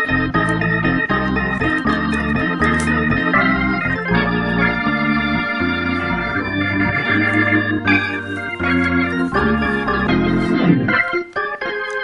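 Background music on an organ-like keyboard, with chords and a bass line that change every second or so.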